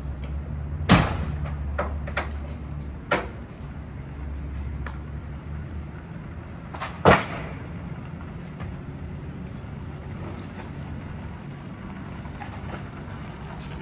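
Truck engine idling with a steady low hum that mostly dies away about six seconds in, with three sharp bangs over it, the loudest about a second in and about seven seconds in.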